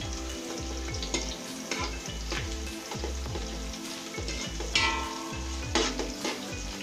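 Sliced onions sizzling in hot oil in a steel pot while a metal ladle stirs them, scraping and clinking against the pot's sides. The onions are being browned, and they need stirring every little while so they don't burn.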